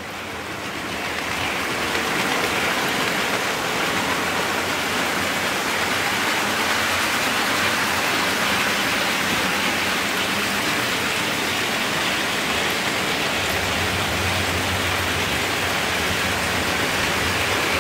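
Hattons Originals Class 66 OO gauge model locomotive running along its track: a steady rushing of metal wheels on rail and its five-pole motor. It builds up over the first two seconds, and a low hum comes in about three-quarters of the way through.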